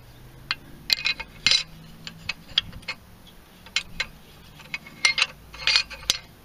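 Aluminium cycloid converter ring of a Trane scroll compressor being worked back into the compressor housing by hand: irregular metal clicks and clinks as it knocks against the scroll and housing, in clusters about a second in and again between five and six seconds in.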